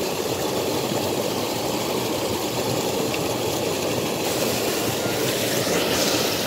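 Water pouring steadily over a small concrete weir into a fast-flowing irrigation ditch.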